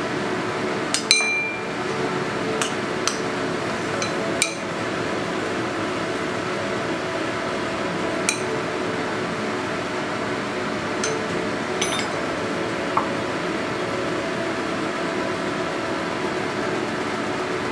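Spoon clinking now and then against a small ceramic bowl while grated daikon is stirred with yuzu juice, the clinks scattered over the first twelve seconds or so, over a steady background sound.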